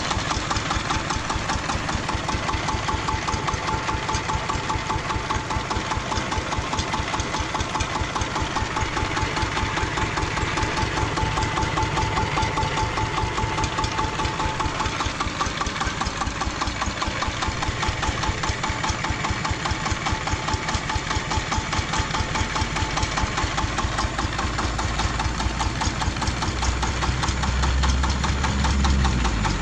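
Engine of a homemade farm tractor running steadily at idle with a rapid, even knocking beat. A deeper rumble swells briefly near the end.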